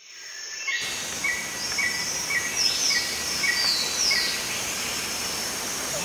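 Steady rush of a waterfall fading in. Over it a short high chirp repeats about twice a second for a few seconds, with a few higher falling calls.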